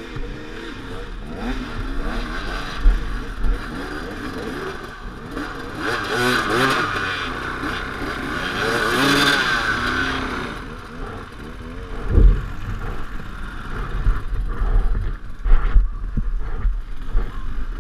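Enduro motorcycle engine revving up and down repeatedly. Its pitch rises and falls, and it is loudest in the middle. A few clattering knocks come in the second half.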